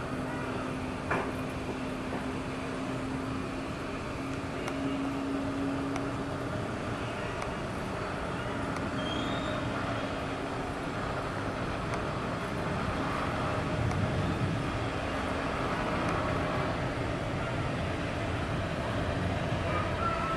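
Distant engine noise of a Boeing 737-800's CFM56-7B turbofans on final approach, slowly growing louder, mixed with steady city traffic noise. There is a sharp click about a second in.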